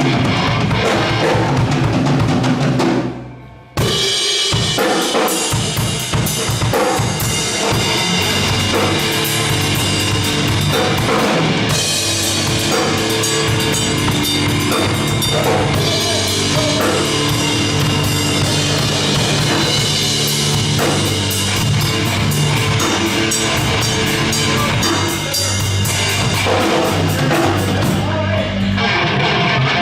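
Band playing loud rock music: drum kit with bass and guitars. The playing breaks off briefly about three seconds in, then starts again and carries on.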